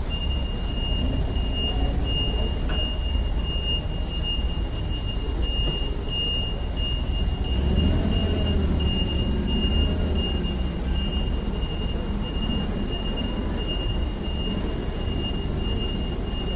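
LPG-powered STILL forklift's engine running under load as it backs away carrying a pallet, with a steady high-pitched warning tone from its reverse alarm that comes on as it starts to back up. The engine gets louder about eight seconds in.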